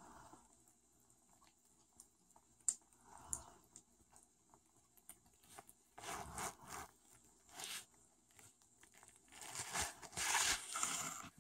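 Kittens eating from a saucer, with faint chewing and lapping clicks. From about halfway on come louder rustling and rubbing noises right at the phone's microphone, loudest near the end, as a kitten's fur brushes against it.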